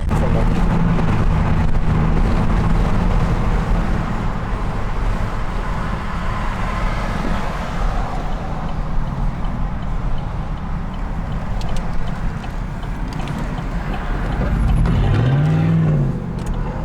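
Vehicle engines running with heavy traffic and road noise. Near the end one engine revs up and drops back down.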